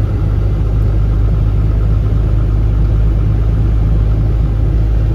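Heavy earthmoving machine's engine running steadily at constant speed, with a strong deep hum and no change in pitch, during a finishing pass over the driveway.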